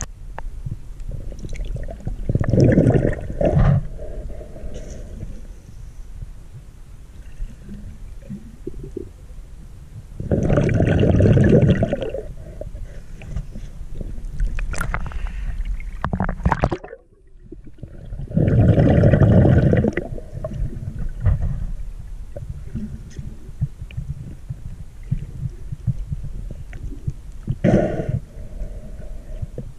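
Muffled water noise picked up by a camera's microphone held underwater while snorkeling. Louder swishing surges come about every eight seconds, and the sound drops out briefly a little after halfway.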